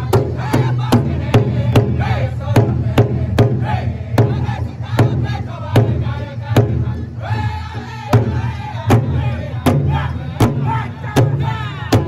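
Powwow drum group striking a large hide-covered drum in unison with beaters, a steady beat about two and a half strokes a second, while the singers sing a high-pitched powwow song over it.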